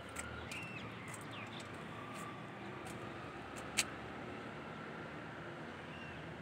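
Steady outdoor background noise with a few faint short chirps, likely birds, and scattered clicks, one sharp click just before four seconds in.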